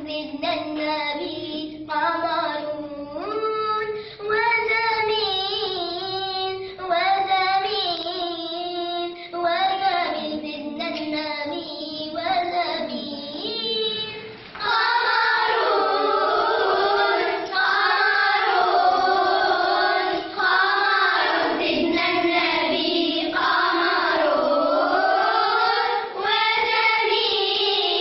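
Schoolchildren singing a nasheed for the Prophet's birthday (Mawlid). A single voice leads for the first half, then the group joins in about halfway, louder and fuller.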